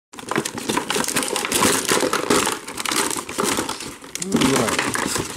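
Clear plastic toy packaging crinkling and rustling in steady, close handling as a boxed action figure is worked free of its box and ties. The noise starts abruptly.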